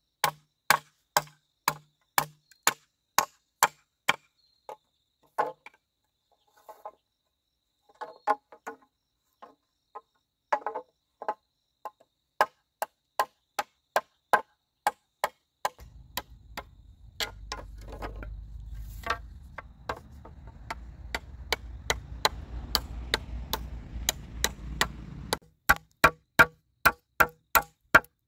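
Steady rhythmic chopping, about two sharp blows a second, with a few seconds of scattered, quieter knocks in between. For about ten seconds in the second half a low rumbling noise runs under the blows.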